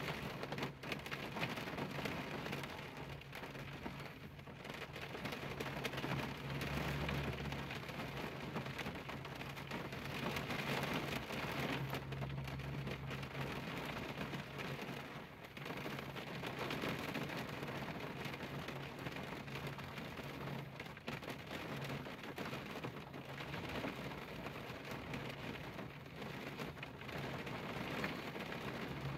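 Rain falling on a car windshield, heard from inside the car: a steady, dense hiss of drops with many small ticks, over a low steady hum.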